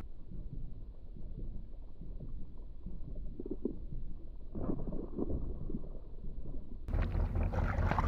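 Low, muffled rumble of wind and boat noise on an action camera's microphone, with nothing sharp standing out.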